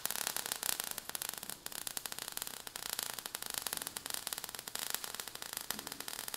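Faint, irregular crackling static.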